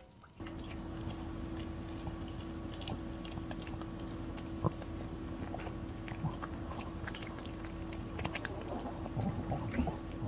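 A small dog chewing a soft dental chew: irregular small clicks and smacks of teeth working the chew, over a steady low room hum.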